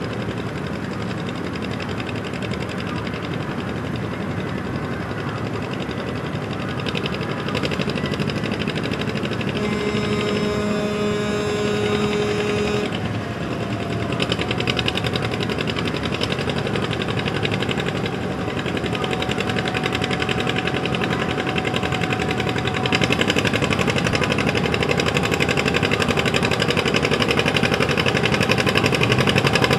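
Farm tractor's diesel engine running hard at a tractor pull, growing louder toward the end. A brief held tone with several pitches sounds over it about ten seconds in.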